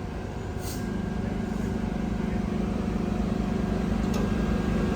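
An engine runs with a steady low hum that sets in about a second in and slowly grows louder over a low rumble.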